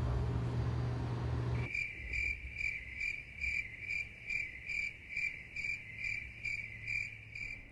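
Background music cuts off about a second and a half in. It is followed by steady, evenly pulsing cricket chirps, about two and a half a second: the stock 'crickets' sound effect that marks an empty, silent room.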